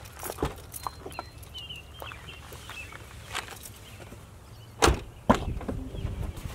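Car door shut twice in quick succession about five seconds in, two heavy thumps half a second apart, the second the louder, after light scuffs and clicks on gravel.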